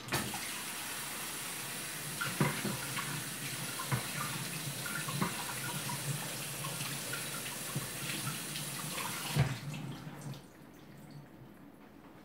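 Kitchen tap running into a sink, with scattered knocks and clinks of things being rinsed under it; the water is turned off about nine and a half seconds in.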